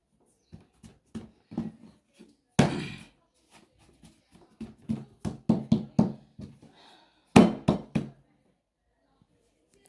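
Hands patting and pressing folded croissant dough on a wooden table: a run of soft thumps and knocks, with two louder slaps about two and a half seconds in and again about seven seconds in.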